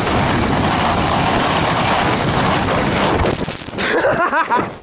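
Rushing noise of wind on the microphone and snowskates sliding over packed snow on a downhill run. A little over three seconds in, a fall: a sudden hiss of spraying snow, then a brief cry from the skater.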